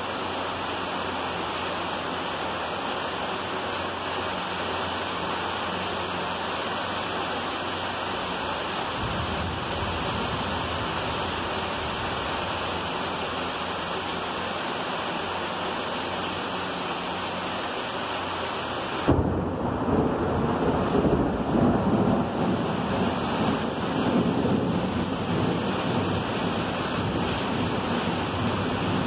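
Heavy rain falling steadily, with water streaming off a roof edge. About two-thirds of the way through, thunder breaks in suddenly and rumbles on, louder than the rain, rising and falling.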